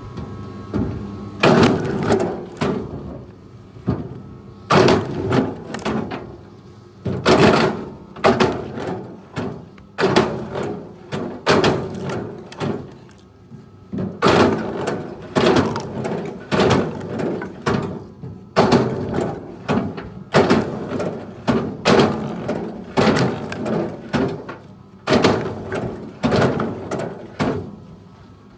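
Repeated heavy knocks and bangs, some two dozen of them at uneven intervals of roughly one a second, each ringing briefly.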